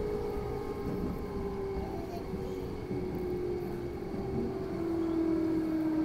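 Electric train heard from inside the car: a steady motor whine falls slowly in pitch as the train slows, over a constant rumble of wheels on track.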